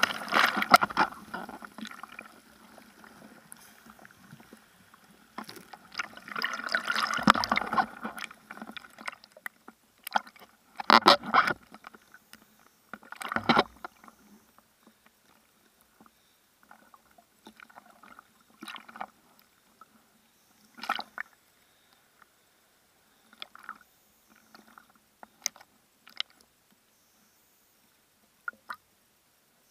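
Seawater rushing and splashing around a bodyboard and its board-mounted camera. Whitewater foam fades over the first two seconds, surges again around seven seconds in, and is followed by two sharp splashes around eleven and thirteen seconds. After that come scattered small splashes and drips with quiet gaps between.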